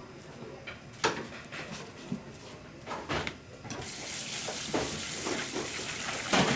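A few sharp knocks of handling at a sink, then about four seconds in a faucet starts running, a steady hiss of water onto cut seafood in a plastic colander as it is rinsed by hand. There is one more loud knock near the end.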